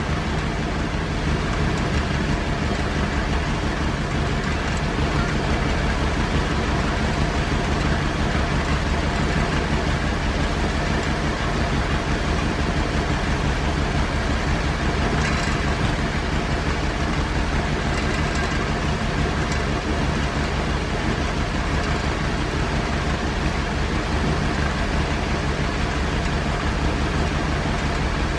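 Mid-size engine idling steadily at an even, unchanging speed.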